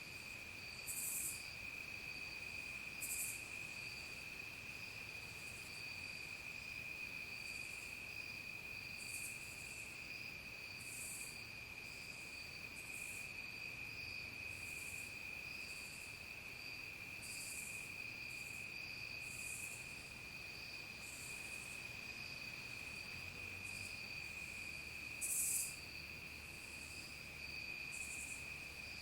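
Evening insect chorus of crickets and other insects: one steady, unbroken high trill, with short high-pitched buzzy calls repeating about every two seconds, three of them louder.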